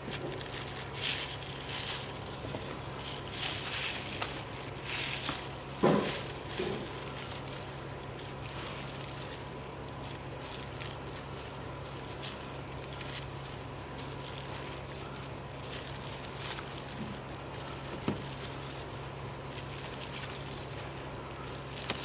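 A block of set jelly being grated by hand on a plastic grater blade: repeated soft rasping strokes, with the rustle of a plastic glove. The strokes are strongest in the first six seconds, with one sharper knock about six seconds in, over a steady low hum.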